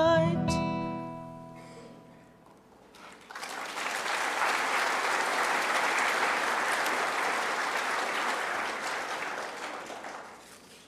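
The song's final note and chord ring out and die away, then an audience applauds for about seven seconds, fading out near the end.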